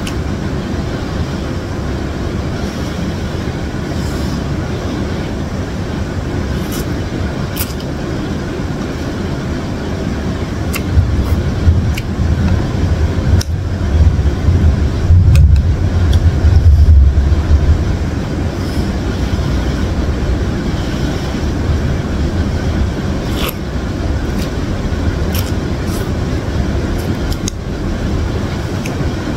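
Steady low rumbling background noise, swelling louder for several seconds around the middle, with a few scattered small clicks and smacks from eating instant noodles with a wooden spoon and fork.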